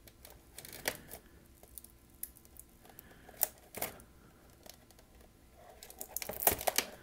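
Fingers scratching and picking at the edge of a sealed cardboard box to get it open: faint scattered clicks and scrapes, then a quick run of louder scratching and tearing near the end.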